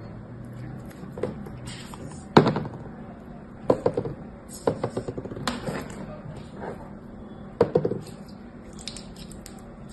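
Slime squished in the fingers and plastic toy pieces and a clear plastic container handled: clusters of sharp clicks and crackles, the loudest a single crack about two and a half seconds in, with further runs of quick clicks around four seconds, five to six seconds and near eight seconds.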